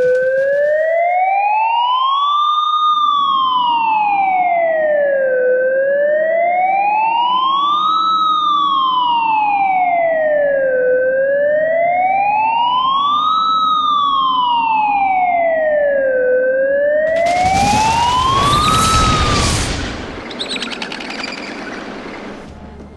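Police siren wailing, slowly rising and falling about every five seconds, three and a half times over, with a low rumble underneath. Near the end a loud noisy burst covers it and the siren dies away.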